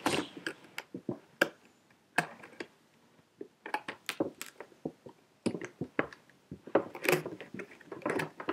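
Packaging being handled and cut open by hand: irregular clicks, taps and short rustles with brief pauses between them.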